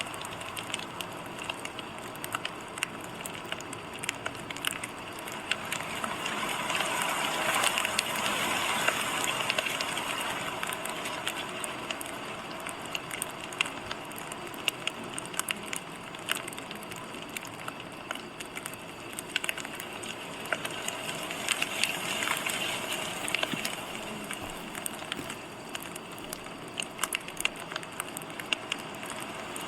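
Wood fire crackling: a steady hiss scattered with frequent sharp pops and snaps, swelling a little twice.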